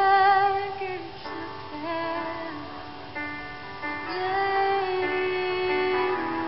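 A woman singing long held notes over instrumental accompaniment, with a wavering vibrato on the loudest note in the first second.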